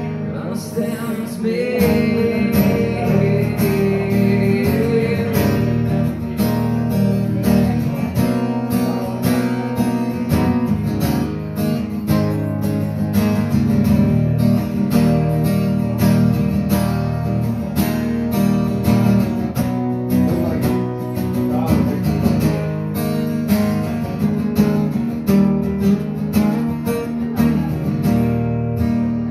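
Live solo song: an acoustic-electric guitar strummed steadily, with a man singing over it for the first few seconds, then the guitar carrying on alone.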